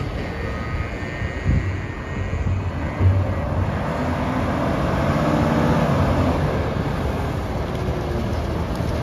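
Volvo L150H wheel loader's six-cylinder diesel engine running as the machine moves. The engine note rises and gets louder from about four seconds in.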